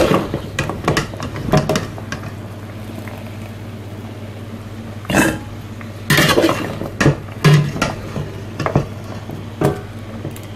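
A utensil knocking and clinking against a metal pot and against oak sticks as the sticks are lifted out of the boiling water, in scattered knocks that come thickest about five to eight seconds in, over a steady low hum.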